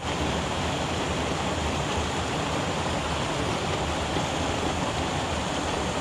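Small mountain-stream waterfall cascading over boulders into a pool: a steady rush of water.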